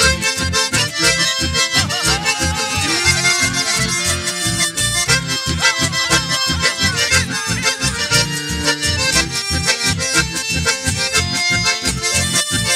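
Instrumental passage of live folk dance music: button accordions and a bandoneon carry the melody over electric bass and acoustic guitar on a steady, quick beat.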